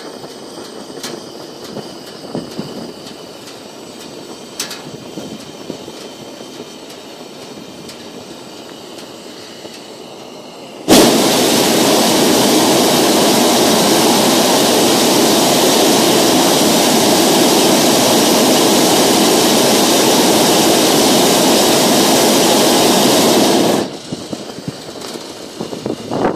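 Hot-air balloon's propane burner firing: a loud, steady blast that starts suddenly about 11 seconds in, holds for roughly 13 seconds and cuts off abruptly. Before it there is only a low hiss with a few light clicks.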